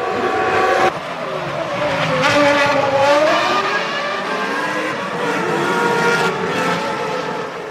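1999 Formula One cars' V10 engines running at high revs; the engine note dips and climbs again two to three seconds in, as for braking into a corner and accelerating out. The sound changes abruptly about a second in.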